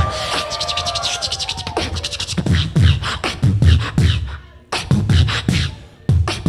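Beatboxing through a microphone and PA: a sliding pitched vocal line over fast hi-hat clicks, then from about two seconds in a beat of deep kick-drum hits with snare and hi-hat sounds.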